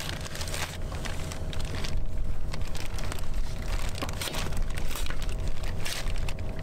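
Thin plastic carrier bag crinkling and rustling as a used diesel filter sock is handled and worked into it, in irregular crackly bursts. A low steady rumble runs underneath.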